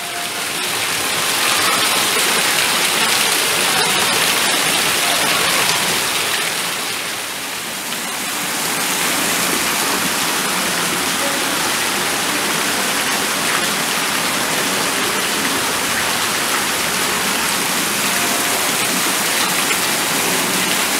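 Steady rushing of running or falling water, easing briefly about seven seconds in before resuming.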